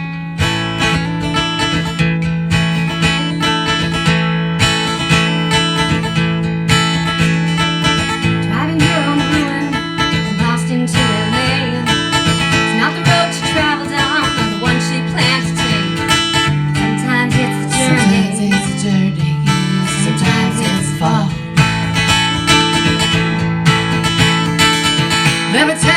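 Instrumental intro of a country-rock song, led by a strummed acoustic guitar with steady low notes underneath, before the vocals come in.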